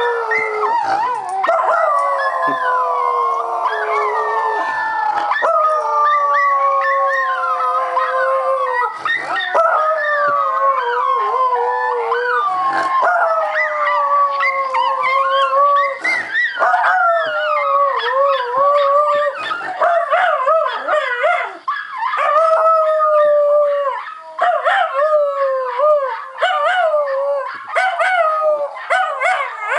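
Schnauzer howling: long drawn-out howls that slide down in pitch, then shorter, wavering howls with more breaks between them from about halfway through.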